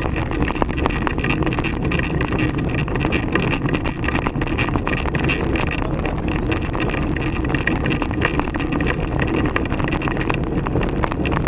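Handcycle riding along a road: a steady rumble of road and wind noise on the mounted camera's microphone, with many small rattles and knocks from the mount and frame.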